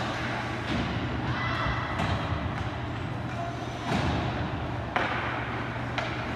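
Ice hockey play on a rink: several sharp knocks of sticks, puck and boards, with skates scraping, over the steady low hum of the arena.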